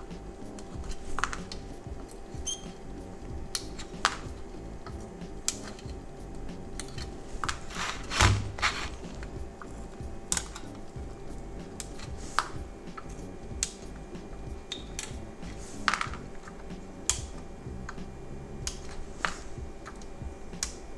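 Irregular sharp clicks and taps from a desoldering gun working the backlight lamps off a car instrument-cluster circuit board. One louder, longer burst comes about eight seconds in, over a steady low hum.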